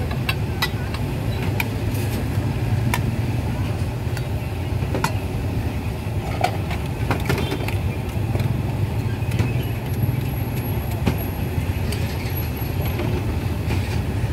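Busy street ambience: a steady low rumble of road traffic, with scattered sharp clicks and knocks and faint background voices.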